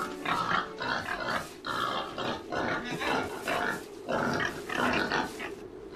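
A pig grunting over and over in quick, short calls, about two or three a second.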